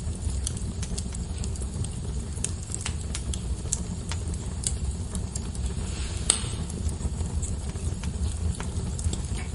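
Fire crackling in a fireplace: a steady low rumble with scattered sharp crackles and one louder pop a little past halfway.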